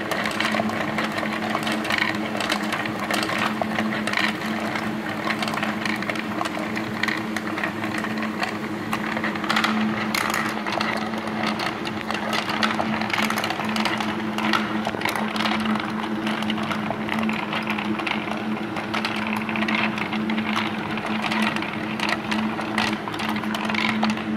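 Laser-cut wooden Tinkineer marble machine running: steel ball bearings clicking and clattering along the wooden tracks and lifts, over a steady hum from the electric drive motor.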